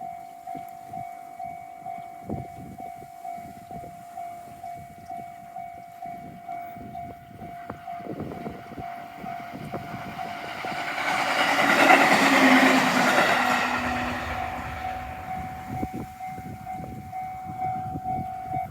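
Japanese level-crossing warning bell ringing with regular, even dings while a train passes over the crossing, the train's noise swelling to its loudest about two-thirds of the way through and then fading. The bell stops right at the end.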